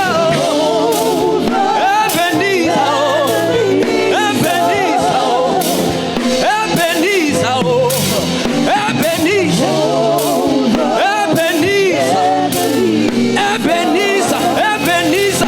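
Live gospel worship music: a band plays while a singer's voice winds through wavering, ornamented runs without clear words, over a steady drum beat.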